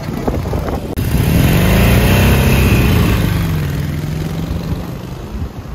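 Harley-Davidson Iron 883's V-twin engine as the motorcycle rides past. About a second in its sound swells, the pitch rises and then falls as it goes by, and it fades as the bike moves away.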